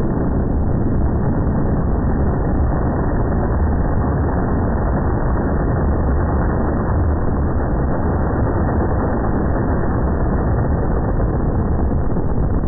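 Top Fuel dragster's supercharged nitromethane V8 running hard, slowed eightfold by slow-motion playback into a deep, steady rumble with no high end.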